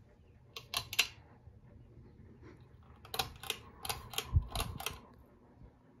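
Faint steady hum of a ceiling fan running, broken by sharp clicks: three or four about half a second in, then about seven more between three and five seconds, with a low thump among them.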